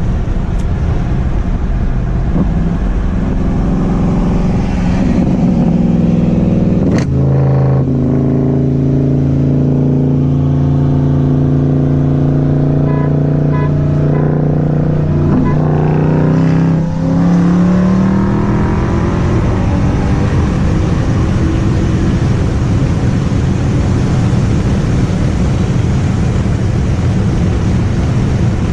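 BMW F30 335i's turbocharged straight-six accelerating hard, heard with a window down. The engine note climbs, breaks briefly about seven seconds in at a gear change, runs strong, climbs again, then sinks under a rush of wind and road noise.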